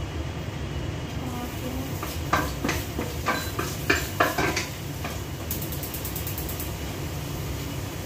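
Spatula scraping and knocking against a metal frying pan while sauce is stirred, a run of sharp clacks about two to four and a half seconds in, over a steady low rumble.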